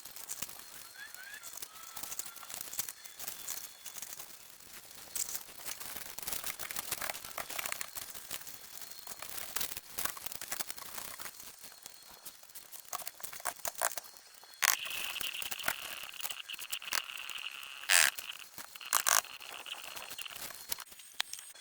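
Crinkling, rustling handling noise with many scattered clicks and taps. About fifteen seconds in, a steady high tone starts and runs for about six seconds, with a few sharp knocks over it.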